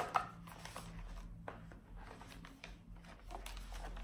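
Stiff cardboard pages of a sheet-mask booklet being turned and handled: a few light taps and rustles, the sharpest near the start, over a low steady hum.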